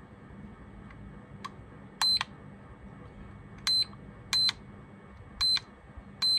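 iMAX B6 balance charger beeping at each press of its menu buttons. Five short, identical high beeps come at uneven intervals, from about two seconds in, as the program menu steps through the battery types.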